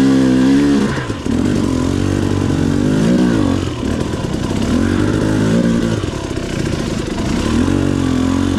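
Two-stroke dirt bike engine under way at low speed, its revs rising and falling several times as the throttle is worked.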